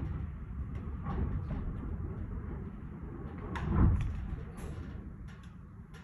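Storm-force wind rumbling and howling against a building, with scattered creaks and clicks from the structure. A louder, falling creak comes a little under four seconds in.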